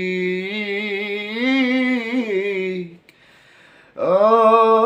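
Unaccompanied male voice singing an Arabic pop song, holding a long wavering note that ends about three seconds in; after a second's pause for breath the next phrase begins.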